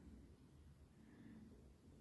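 Near silence: faint low background noise.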